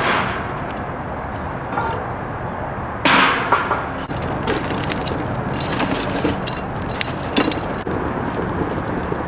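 Wood cracking and snapping over a steady hiss, with one loud crack about three seconds in and a run of smaller snaps later on.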